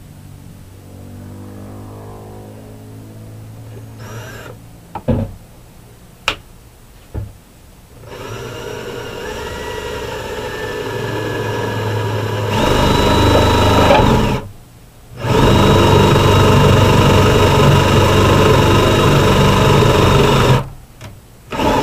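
Ryobi power drill driving screws. After a few sharp clicks, the motor runs up gradually over several seconds, stops briefly, then runs loud and steady at full speed for about five seconds.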